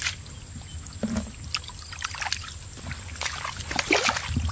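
Bare hands sloshing and splashing in shallow muddy water, several short splashes about a second apart, the strongest around four seconds in, as the hands grope for fish.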